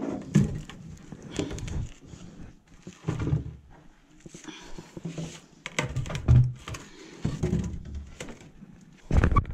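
Irregular knocks, thumps and scuffs of boots and gloved hands on an old wooden ladder as someone climbs it in a narrow rock shaft, with clothing rustling; the loudest knock comes near the end.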